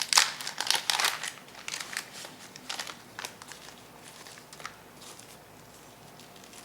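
Packaging crinkling as it is opened and handled, dense at first, then thinning to a few scattered crackles.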